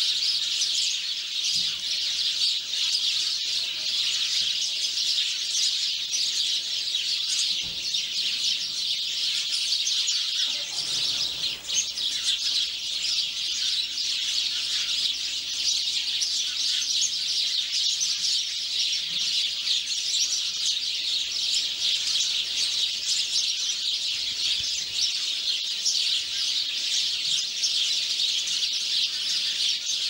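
House sparrows chirping, a steady unbroken chatter of short chirps.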